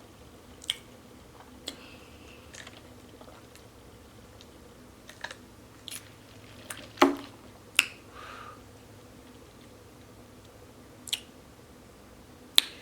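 Close-miked chewing and mouth sounds of a person eating, with scattered sharp clicks and smacks, the loudest about seven seconds in and just before the end.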